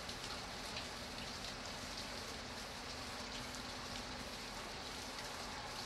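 Steady rain falling, a continuous hiss with many small drop hits scattered through it.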